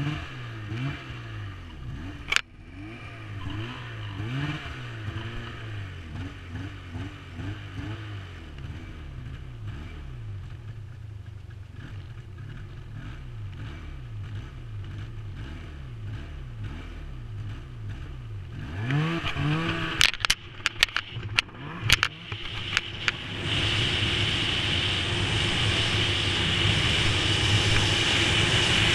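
Snowmobile engine idling with a wavering pitch, with one sharp click about two seconds in. Near the end it revs up and the sled sets off with a series of sharp knocks and clatter. It then runs steadily and grows louder as it picks up speed, with rushing noise.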